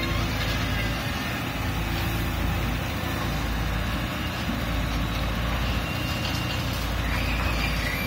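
Caterpillar 320C hydraulic excavators' diesel engines running steadily under load while digging and swinging in wet mud.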